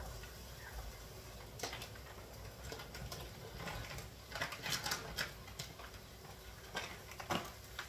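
Plastic pasta packet crinkling and rustling in short scattered bursts, with a few light clicks, as fresh tortelloni is tipped out into a saucepan.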